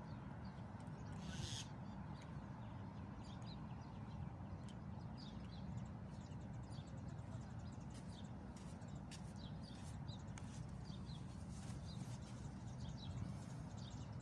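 A steady low outdoor rumble, with faint, short bird chirps scattered through it, more frequent in the second half.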